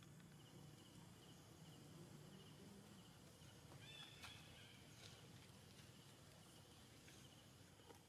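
Near silence: faint outdoor ambience with insects chirping faintly, and a short click and brief high squeak about four seconds in.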